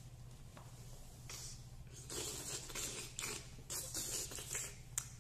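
Paper pages of a large picture book rustling and crinkling in several irregular bursts as a page is turned and the book is held up, over a low steady hum.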